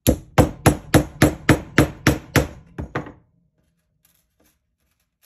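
Small claw hammer tapping a small nail into a pine wood panel, the nail held in needle-nose pliers: about eleven quick, sharp metal-on-metal taps over three seconds, then the hammering stops. A few faint ticks follow.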